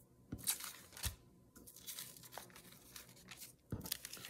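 Thin rice paper rustling and crinkling as it is picked up and handled, with a few soft knocks: about half a second in, about a second in, and near the end.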